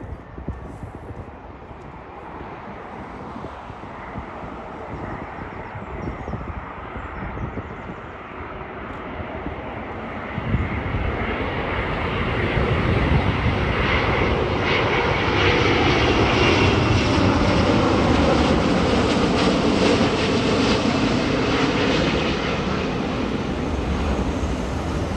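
Twin-engine Airbus A330 airliner on its landing approach, the jet engine noise building as it comes closer, rising sharply about ten seconds in and at its loudest past the middle before easing slightly.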